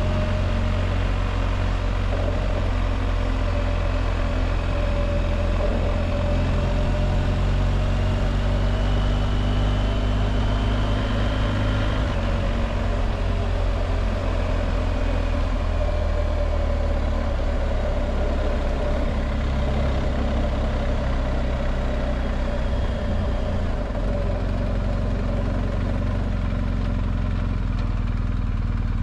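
BMW R1250GS Adventure's boxer-twin engine running steadily under way, heard from the bike itself together with road and wind noise.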